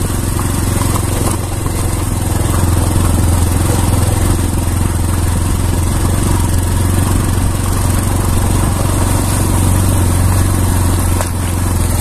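Bajaj Platina commuter motorcycle's single-cylinder four-stroke engine running steadily under load, carrying three riders over a rough gravel track.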